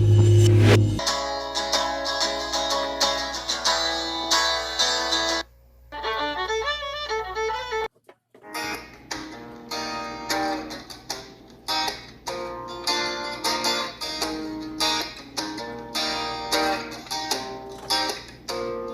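Country music with fiddle and acoustic guitar, an instrumental stretch with a short break about eight seconds in.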